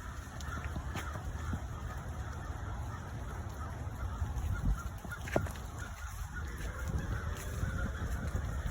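A flock of birds calling in a dense, distant chatter, over a steady low rumble.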